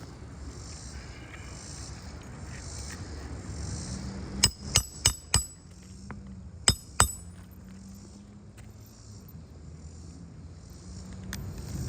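Hammer driving a roofing nail into an asphalt shingle: four quick ringing metal-on-metal blows, then two more about a second later.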